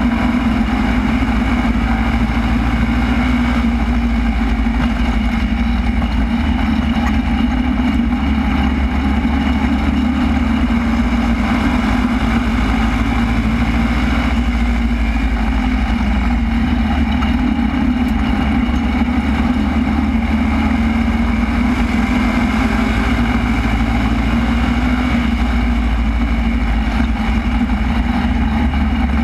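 Super stock race car's engine running hard at racing speed, heard from inside the car's cockpit: a loud, steady drone.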